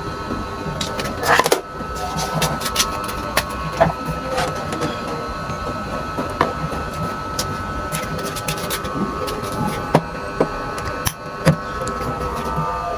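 Scattered clicks and small knocks of a power adapter and its cable being handled and plugged in, over a steady high electronic whine.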